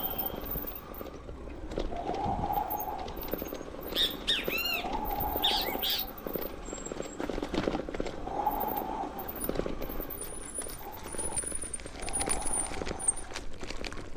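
Birds calling, with a few quick arching calls around the middle, over the steady clicking and rattling of a bicycle being ridden along a dirt trail.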